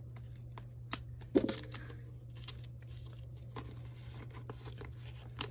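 Photo cards and plastic binder sleeves being handled: scattered small clicks and rustles, with a faint steady low hum underneath.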